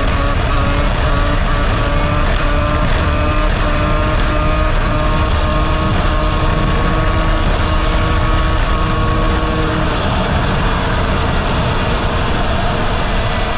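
Honda CR250R's two-stroke engine running hard through a wheelie, its note slowly rising and then holding steady, over heavy wind rush. About ten seconds in the engine note fades out and the wind rush is left.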